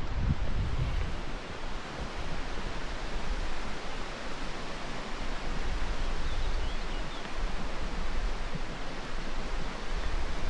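Steady outdoor rushing noise, like mountain water or wind, with low wind buffeting on the microphone in the first second or so.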